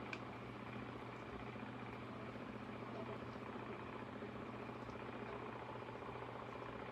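Faint, steady hum of a small electric motor, a tumbler cup turner spinning the epoxy-coated tumbler.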